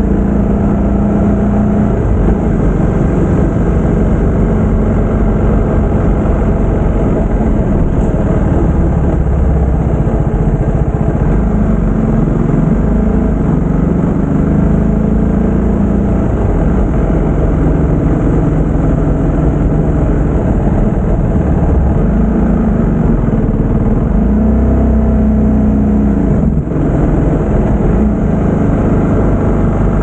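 TVS Apache RR 310's single-cylinder engine running as the motorcycle is ridden, its pitch rising and falling with the throttle several times, over a steady rush of road and wind noise.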